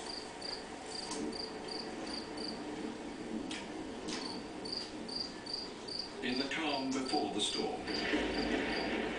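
Crickets chirping in an even, repeating pulse of about two to three chirps a second, with a brief pause about three seconds in and a few short sweeping calls laid over it later, coming from a nature documentary's soundtrack played through a television speaker.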